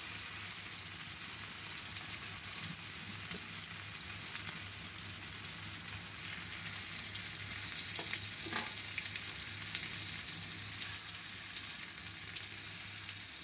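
Marinated chicken pieces sizzling steadily as they fry in oil in a pan, with a couple of light taps about eight seconds in.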